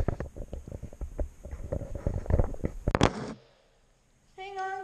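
Handling noise on the camera's microphone: a quick run of knocks and rubbing rumbles as the handlebar-mounted camera is moved, ending in a loud scrape about three seconds in. After a short near-silence, a steady pitched tone with overtones begins near the end.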